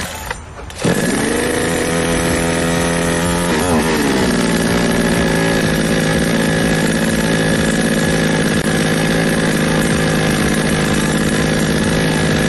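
Small gas-powered two-stroke chainsaw engine running at high revs, then dropping back about four seconds in to a lower, steady speed.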